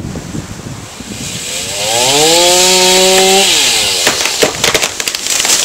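Chainsaw revving up about one and a half seconds in, held at full throttle for about a second and a half while cutting into soft, rotten willow wood, then dropping back to idle. A scatter of sharp clicks and knocks follows.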